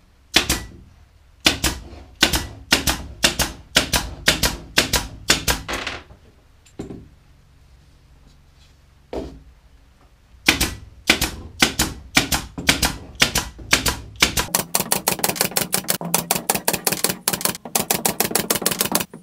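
Air-powered pin nailer firing pins into plywood: sharp single shots, about two or three a second, with a pause of several seconds midway. Near the end a faster, even run of ticks sets in over a steady low hum.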